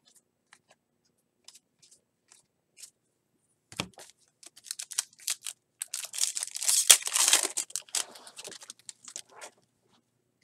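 A foil-wrapped trading card pack being torn open, its wrapper crinkling loudly for several seconds. Before it come a few soft clicks of cards being handled and a single thump.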